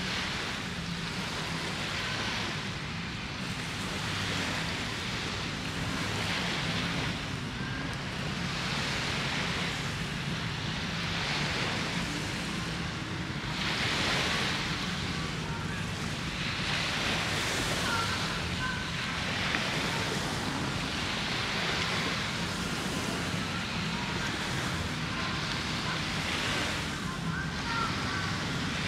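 Small sea waves washing onto a sandy beach, the surf noise swelling and fading every two to three seconds, over a steady low hum.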